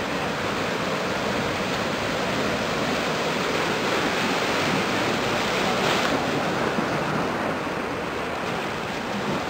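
Small waves washing ashore in a steady rush of surf, swelling a little about six seconds in.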